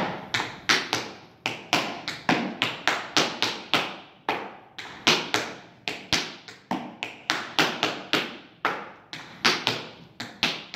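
Tap shoes striking a hard dance floor in a steady run of sharp taps, about three a second, as the dancer repeats a Conestoga tap step of steps and hops.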